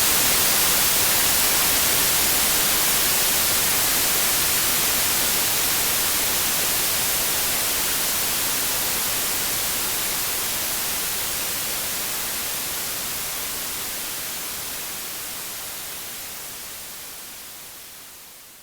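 Steady white noise, an even hiss strongest in the highs, fading out gradually and then quickly near the end.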